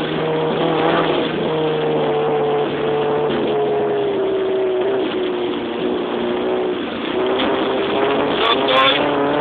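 Car engine heard from inside the cabin, running hard at fairly steady high revs; its pitch sags slightly midway, then climbs again near the end as the car accelerates.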